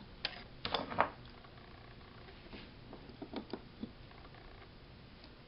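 A few light clicks and scrapes of a metal putty knife working a freshly cast solder stick loose from a wooden bench. Later come faint ticks as pliers grip the stick.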